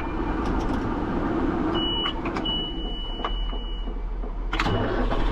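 Tractor engine running, heard from inside the cab, with a few switch clicks and a high electronic warning beep sounding twice, briefly and then for over a second. About four and a half seconds in there is a sharp knock and the engine's low rumble grows louder.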